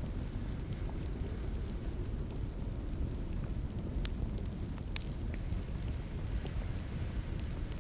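Wood fire burning in a fireplace: a steady low rumble with scattered crackles and pops, the sharpest about four and five seconds in.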